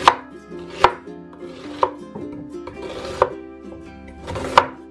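Chef's knife slicing through a white onion on a wooden cutting board: five cuts, each a short crunch through the onion ending in a knock of the blade on the board. Light plucked-string music plays underneath.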